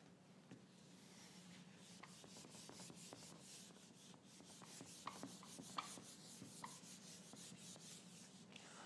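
Faint rubbing of a whiteboard eraser wiping marker off a whiteboard, in quick even strokes about four a second, with a few short squeaks about halfway through.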